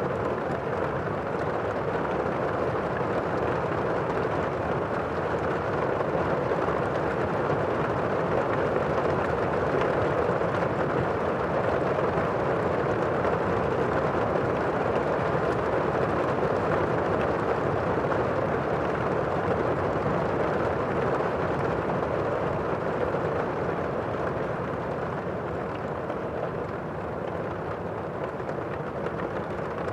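Steady rain, an even hiss with no breaks or distinct drops standing out.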